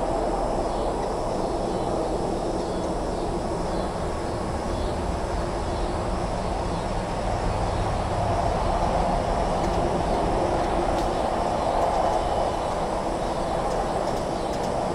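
A steady rumbling noise with no clear tone or rhythm, swelling slightly about eight seconds in.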